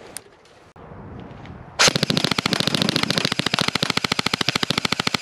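Game Face Ripcord M4 electric airsoft rifle with a full metal gearbox firing one long full-auto burst, starting about two seconds in: a rapid, even stream of shots that keeps going.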